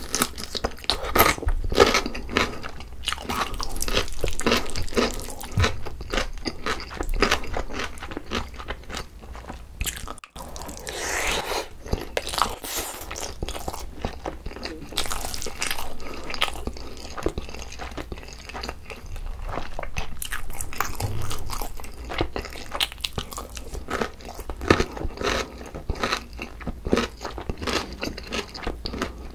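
Close-miked eating: crisp crunching bites and wet chewing of kimchi and pickled radish with chicken and rice, in quick, irregular crackling clicks.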